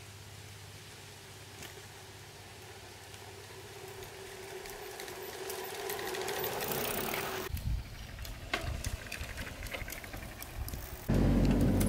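Bicycle being ridden on an asphalt road: the tyre noise grows louder as it approaches and passes, followed by a run of light rapid ticks from the drivetrain. Near the end a louder, steady sound cuts in abruptly.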